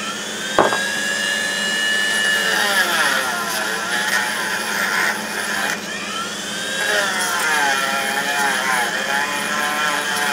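Handheld high-speed rotary grinder with a small grinding stone, switched on with a click and spinning up to a high whine, the pitch dipping and wavering as the stone bears on the steel, grinding the weld seam out of the inside of a tube. It cuts out briefly about six seconds in, then spins up and grinds again.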